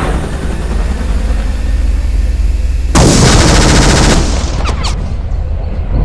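War sound effects: a steady low rumble with a fast pulse, and a burst of rapid machine-gun fire lasting about a second, starting about three seconds in. A few short whistles follow.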